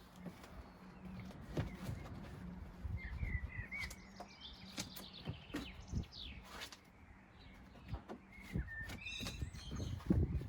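Small birds chirping and twittering in short phrases, over knocks, rustling and low rumbling from movement close by. A steady low hum runs for the first seven seconds or so and then stops.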